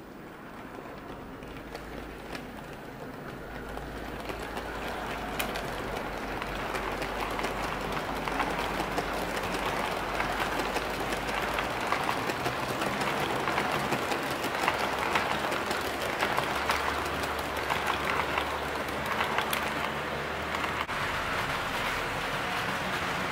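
HO-scale model passenger train rolling past on the track, its wheels rattling and clicking over the rails. It grows louder over the first several seconds, then runs steadily.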